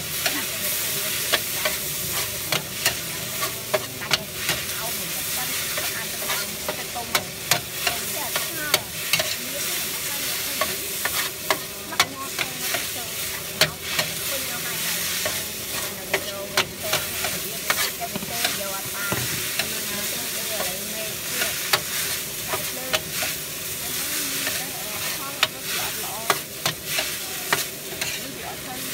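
Metal spatula scraping and clinking against a large steel wok as noodles are stir-fried, over a steady sizzle of hot oil. The strokes come irregularly, about one to two a second.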